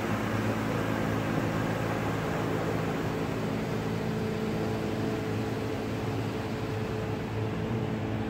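Automatic car wash heard from inside the car's cabin: water jets spraying over the windshield and body as a steady hiss, with a steady machine hum underneath.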